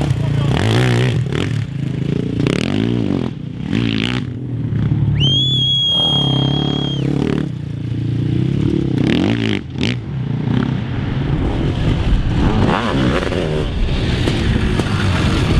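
Sidecarcross racing outfits' motorcycle engines revving up and down as they race past. About five seconds in, a high steady whistle-like tone sounds for about two seconds.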